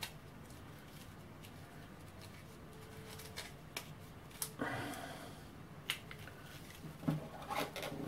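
Faint handling sounds of a double-edged hook knife being worked back into its leather sheath: a few scattered small clicks and brief rubbing.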